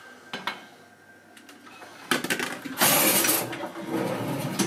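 A few light plastic knocks from a small rice pot, then a cutlery drawer pulled open with the knives and forks clattering and rattling inside it, starting about two seconds in.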